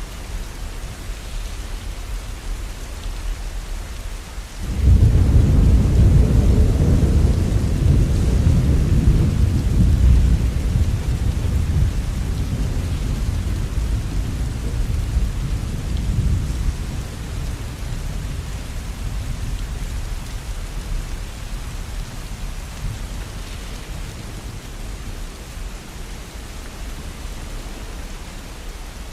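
Steady rainfall with a long roll of thunder: a sudden deep rumble breaks in about five seconds in and slowly dies away over the next twenty seconds.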